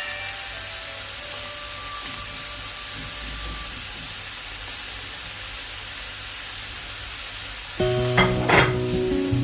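Food sizzling as it fries in a pan, a steady hiss, under background music that gets much louder near the end.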